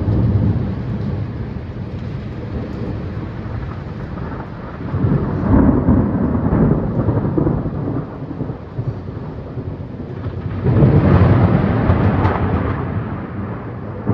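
Thunder rumbling during a thunderstorm, with two long rolls that swell up about five seconds in and again about ten and a half seconds in, each fading away over a few seconds.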